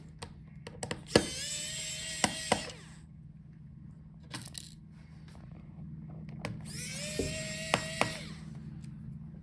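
Small electric screwdriver running twice, each run under two seconds: the motor whine climbs quickly and then holds steady, with sharp clicks and taps before and between the runs.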